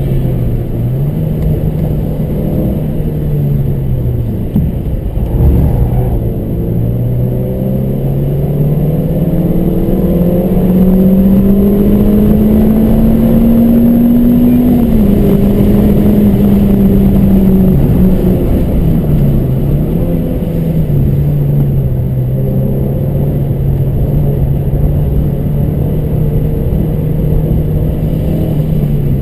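Car engine under load on a race track, its pitch climbing slowly for several seconds, then dropping sharply as the driver lifts off, before settling at a steady note.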